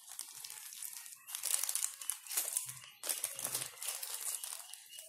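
Thin plastic packaging crinkling and rustling as it is handled, in irregular bursts, loudest about one and a half seconds in and again after three seconds.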